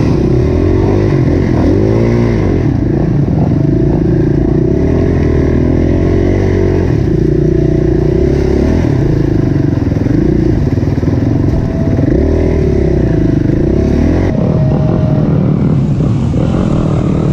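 KTM EXC-F four-stroke single-cylinder dirt bike engine revving up and down as it is ridden through deep trail mud, its pitch rising and falling again and again with the throttle.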